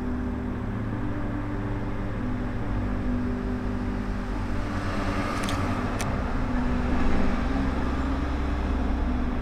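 Road traffic: cars passing steadily on a multi-lane city road. Two short, sharp clicks come about five and a half to six seconds in.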